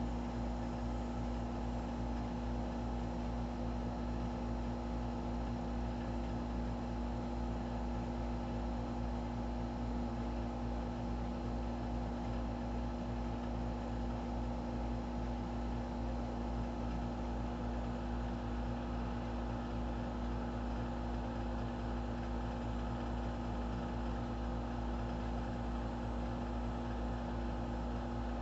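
Steady machine hum with several fixed tones and no change in level, from a motor running.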